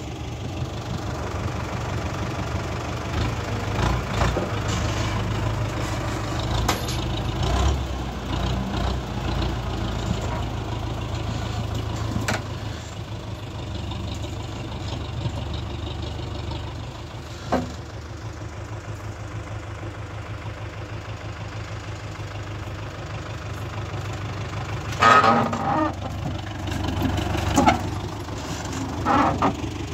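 Farm tractor engine running steadily at idle, a constant low hum, with a few short, louder sounds near the end.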